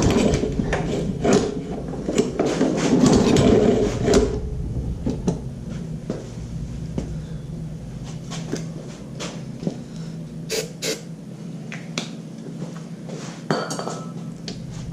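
Metal clattering and clicking as mower parts and tools are handled: busy for about the first four seconds, then scattered clicks and knocks. No engine is running.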